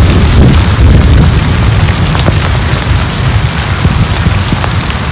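Wind buffeting the microphone: a loud, steady low rumble with a hiss over it.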